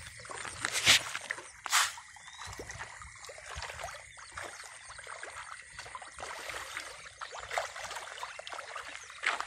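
Murrel fish splashing and stirring at a pond's surface: a constant light trickling and crackling of water, with sharper splashes about one and two seconds in and again near the end.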